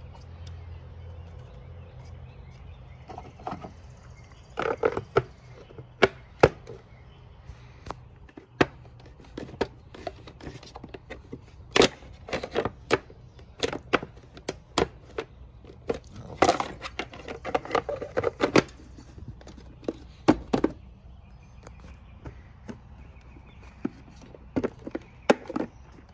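Plastic under-hood fuse box cover being fitted back onto the box, with many separate clicks, knocks and short plastic rattles as it is pushed and snapped into place.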